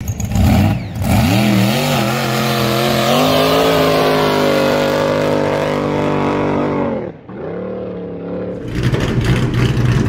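An engine revving up in a few blips and holding at high revs, then dropping away suddenly about seven seconds in; near the end it settles into a low, pulsing idle.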